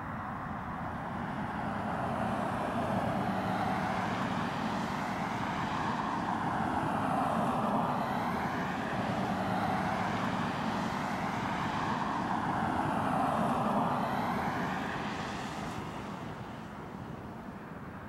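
Boeing 737-300's CFM56-3 turbofan engines at takeoff power as the airliner rolls down the runway and lifts off: a broad jet roar with a swirling, wavering quality. It builds over the first couple of seconds and fades over the last few seconds as the jet climbs away.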